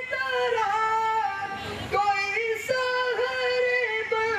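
A man singing an unaccompanied melody into a microphone in a high voice, holding long notes and sliding between pitches.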